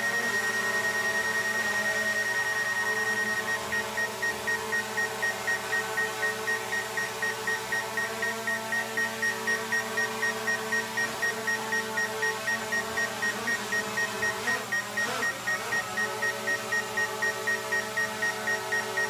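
A drone's remote controller sounding a high warning tone: held steady at first, then breaking into fast, regular beeping about three and a half seconds in. Under it runs the steady hum of the drone's propellers, which shifts briefly in pitch near the fifteen-second mark.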